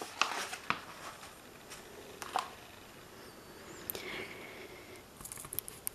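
Pages of a hardcover picture book being handled and turned: a few soft paper rustles and light taps, with a faint brief whistle-like tone about four seconds in.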